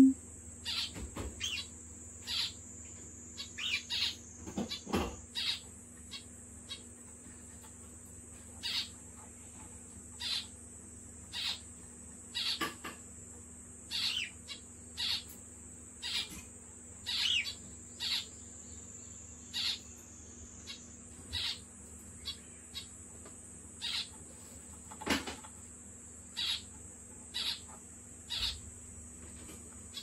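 Male zebra finch giving short calls, roughly one a second with a few pauses, over a faint steady high hiss. A short low thump sounds at the very start.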